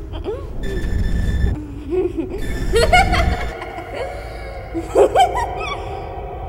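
A woman laughing, her voice sliding up and down, with sharp loud bursts about three and five seconds in. A low rumble runs underneath for the first half and then stops.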